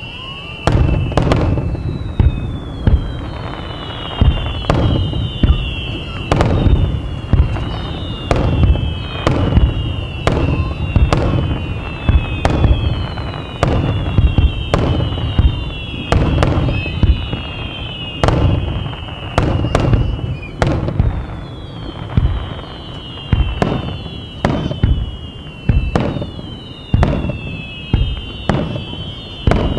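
Aerial fireworks going off in a dense, rapid barrage: sharp shell bursts about one to two a second over a continuous low rumble, with a string of high whistles that fall in pitch.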